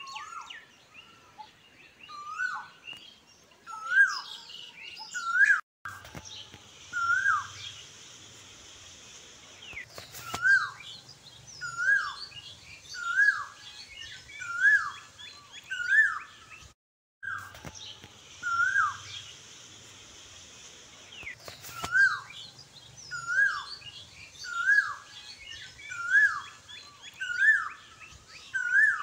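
A bird calling over and over, one short rising whistled note about every second and a half, with other birds chirping faintly behind. The sound drops out briefly twice.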